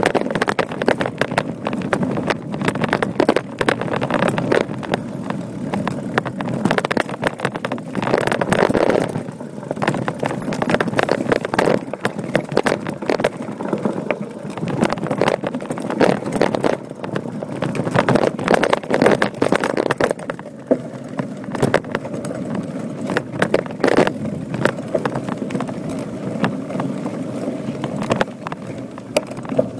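Voodoo Bizango hardtail mountain bike ridden over a rocky dirt trail: tyres crunching on gravel and the bike rattling over the bumps in a continuous, irregular clatter of small knocks.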